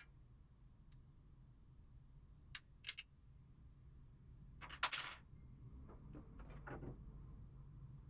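Faint metallic clicks and clinks of hand tools on bolts while a front fender is bolted onto a bicycle frame: a couple of light clicks, then a louder clink about five seconds in and a few softer ones after.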